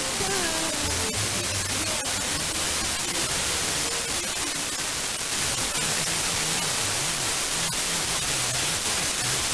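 FM radio receiver hiss with a weak, distant station's music fading in and out underneath: the music is audible for about the first second, then sinks into steady static, with faint low tones coming back later. A long-distance sporadic-E signal at the edge of reception.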